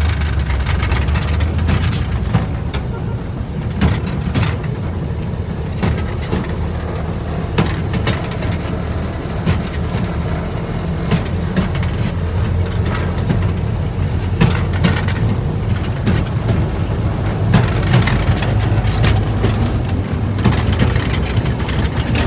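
A railway speeder car running along the track: a steady low rumble of its small engine and its wheels on the rails, with sharp clicks and clunks now and then.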